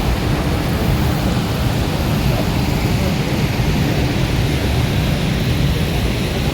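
Steady, loud roar of the water falling at Niagara Falls, an even rush with no breaks.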